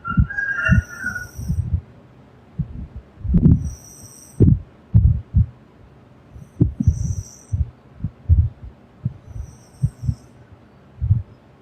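A sleeping person snoring: irregular low thumps several times a second, with a breathy high hiss about every three seconds.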